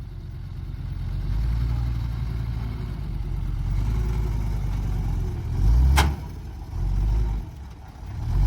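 Heavy diesel engine of recovery machinery running under load, its low rumble swelling and surging several times. A single sharp metallic knock comes about six seconds in.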